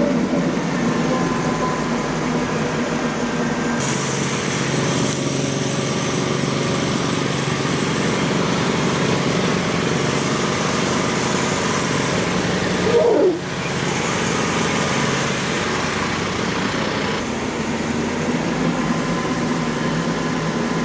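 Diesel tractor engine running steadily as the tractor is brought up, with a brief rise and fall in pitch about 13 seconds in.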